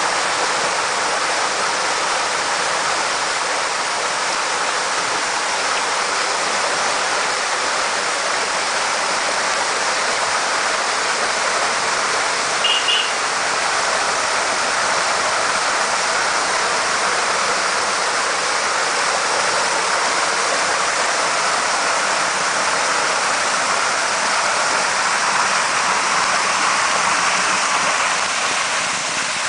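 Water of a landscaped garden waterfall falling and splashing in a steady rush. A brief high chirp sounds about halfway through.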